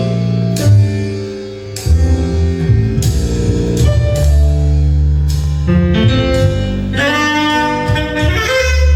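Instrumental music played loudly through a hi-fi system of horn speakers, woofers and tweeters, with heavy bass under sustained melody notes.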